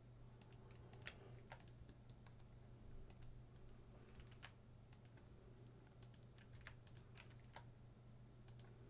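Faint, irregular clicks of a computer keyboard and mouse, a few a second at most, over a low steady hum.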